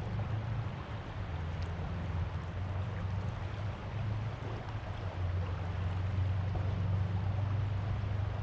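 Steady rush of flowing water, with a low rumble underneath it.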